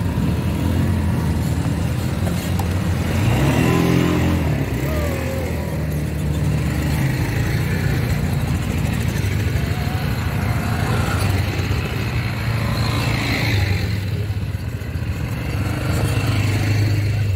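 ATV (quad bike) engines running steadily, with a louder swell of revving as a quad pulls away about four seconds in and again later.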